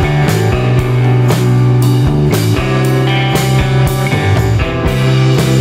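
Rock music with guitar and drums, a steady beat.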